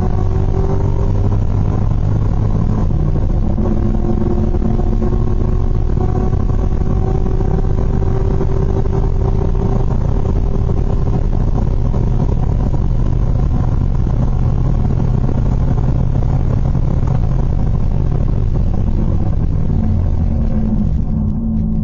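Chevrolet LS V8 of an R32 Skyline GT-R race car, heard from inside the cabin. It runs at full throttle and high speed, shifting up from fourth to fifth gear. Near the end the driver comes off the throttle under braking.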